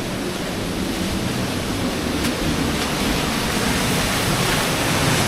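Steady rush of falling water from a waterfall, an even dense hiss that grows slightly louder toward the end.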